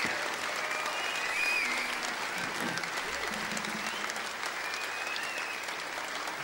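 Concert audience applauding steadily, with a few whistles rising and falling over the clapping.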